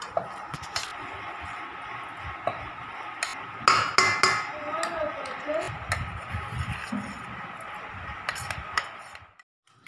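Steel spoon scraping and knocking against a steel mixer-grinder jar and bowl as ground moong dal batter is scooped out. The loudest clatter comes about four seconds in.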